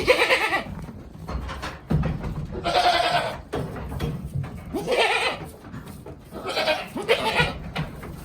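Goats bleating: about four drawn-out calls, spaced roughly two seconds apart.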